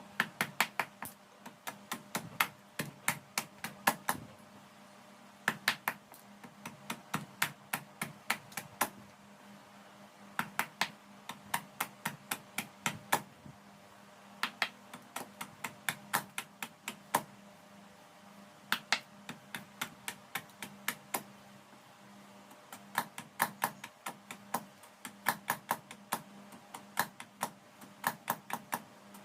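Light hammer taps on metal, in quick runs of several strikes a second broken by short pauses.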